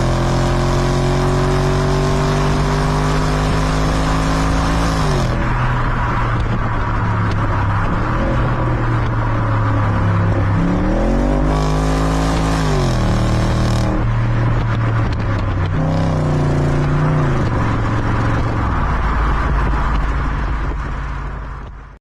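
Audi S4 B7's stock 4.2-litre V8 running: the engine note climbs slowly for about five seconds and then drops, then rises and falls twice more, and fades out at the end.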